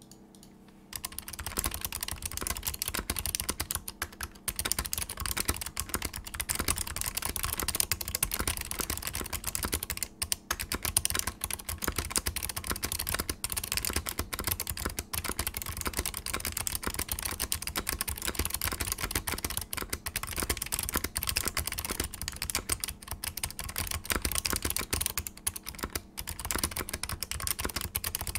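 Smith + Rune Iron180 mechanical keyboard with click-modded, dampened cream Alps switches on a stainless steel plate and blank keycaps, being typed on fast and continuously. The rapid clicking starts about a second in and breaks for a moment a few times.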